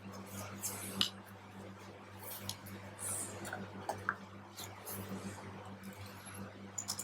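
Soft clicks, taps and rustling as a tablet keyboard case is handled, over a steady low electrical hum.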